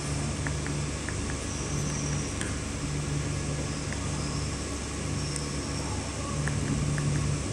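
Projector's cooling fan running with a steady hum and whir. A few faint clicks of remote-control buttons being pressed, in two small groups early and near the end.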